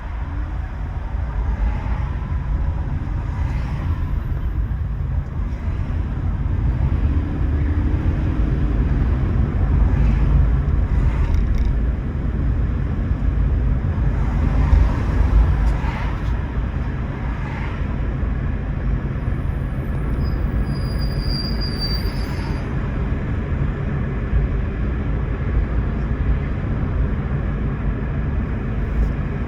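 Toyota Prius driving along: a steady low rumble of road and tyre noise that swells slightly in the middle, with a brief faint high tone a little over two-thirds of the way through.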